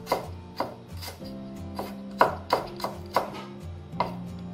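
Kitchen knife slicing fingerroot (krachai) on a wooden cutting board: a series of sharp knocks of the blade on the wood, irregularly spaced, about eight in all, with soft background music underneath.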